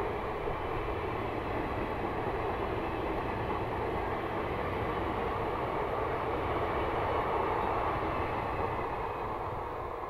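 Indian Railways passenger coaches rolling past at speed: a steady rumble and clatter of wheels on the rails, easing slightly near the end as the last coach passes.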